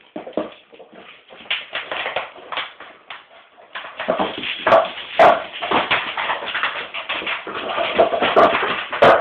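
A dog chewing and pawing at an empty plastic soda bottle, the plastic crackling and crunching in quick irregular bursts, sparser at first and busier from about four seconds in.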